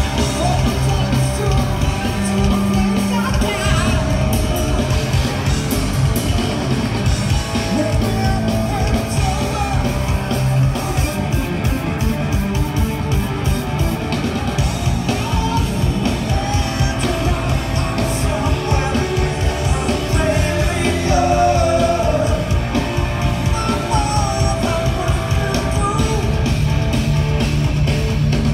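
Live hard rock band playing: distorted electric guitar, electric bass and drum kit, with a man singing over them, heard loud and steady from within the concert crowd.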